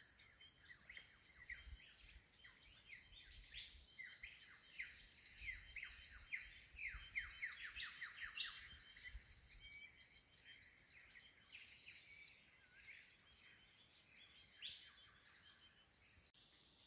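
Faint chorus of small birds calling in bushland: many quick chirps that sweep down in pitch, busiest in the middle, cutting off abruptly near the end.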